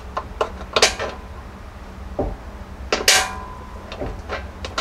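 Scattered light metallic clinks and taps, with a louder clatter about three seconds in, as a 1/4-inch bolt and the bent sheet-metal fender tab are worked into line against a steel tube rocker panel.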